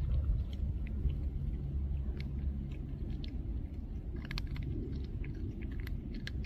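Calico cat eating dry kibble, with irregular small crunches as it chews. A steady low rumble runs underneath.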